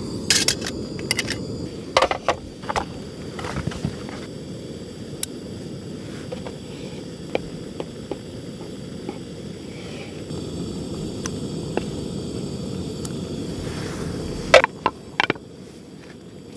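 A steady low rumble of wind on the microphone, with scattered clicks and knocks of cooking utensils and a knife on a wooden cutting board. The loudest cluster of sharp knocks comes near the end, when the rumble drops away.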